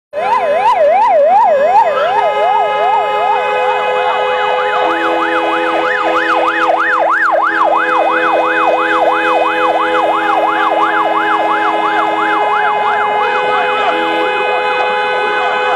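Several vehicle sirens wailing at once: one sweeps quickly up and down, about four times a second, and from about two seconds in another sweeps more slowly at a higher pitch, over steady held tones.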